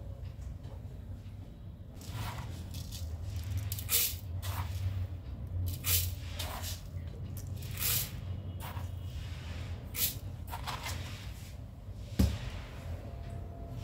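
Spoonfuls of granulated sugar scooped from a jar and tipped into a plastic blender jar, four strong gritty rustles about two seconds apart with fainter scoops between. A sharp click near the end, over a steady low hum.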